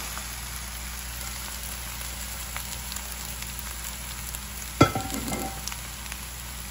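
Chopped long beans and a grated-coconut mix frying in oil in a nonstick wok, giving a steady sizzling hiss. About five seconds in there is one sharp knock, the loudest sound, followed by a short ring.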